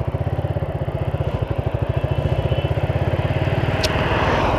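Motorcycle engine running steadily, growing a little louder as the bike comes out of a U-turn and rides off. A short click about four seconds in.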